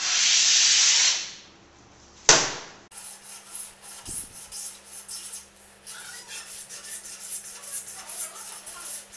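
Hand tool scraping on a laminate sheet over a plywood panel: one long loud scrape at the start, a sharp knock a little over two seconds in, then a run of small irregular scrapes and clicks.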